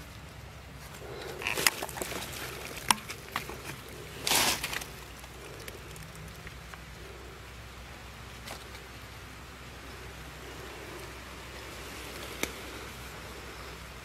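Rustling of dry leaves and grass as a gloved hand lifts bird eggs from a ground nest, with several sharp clicks about two to three seconds in and a louder brief rustle about four seconds in. After that comes faint, steady outdoor background with a single click near the end.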